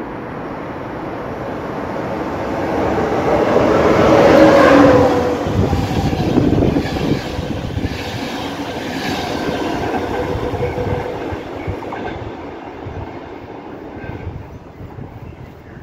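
Passenger train of alex coaches passing close by on the platform track: the sound builds to its loudest about four and a half seconds in as the head of the train goes by, then the coaches roll past with a repeated clatter of wheels that slowly fades toward the end.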